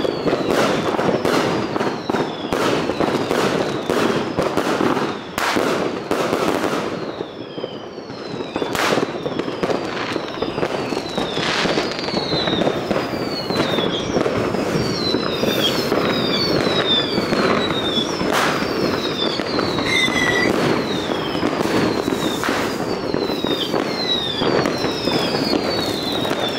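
Fireworks going off in a continuous din of bangs and crackling, with many short whistles that fall in pitch, overlapping and crowding together in the second half.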